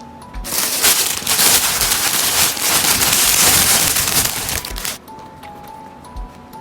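Plastic packaging crinkling loudly close to the microphone for about four seconds, over soft background music with a simple melody and a light beat.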